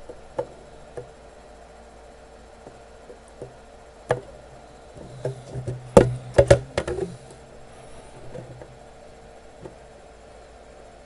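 Scattered clicks and knocks of small tools being handled on a workbench during soldering, with a quick run of louder knocks about six seconds in.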